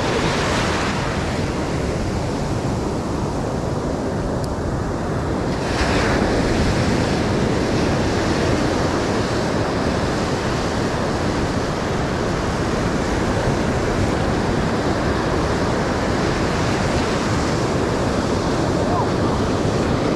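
Ocean surf breaking and washing through the shallows, a steady rushing that grows a little louder about six seconds in, with wind buffeting the microphone.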